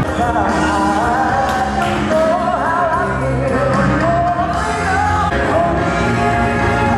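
A man singing into a handheld microphone over amplified pop backing music.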